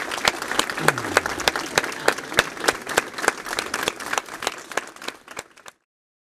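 A small crowd applauding, dense hand claps that thin out and fade, then cut off abruptly near the end.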